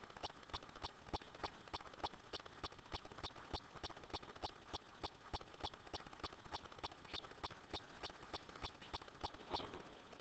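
A steady run of light, sharp clicks, about four a second, stopping shortly before the end.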